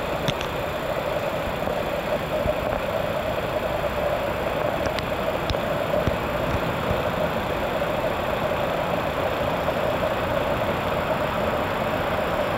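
Steady ambient rumble of an elevated station and the city around it, with a constant mid-pitched hum throughout.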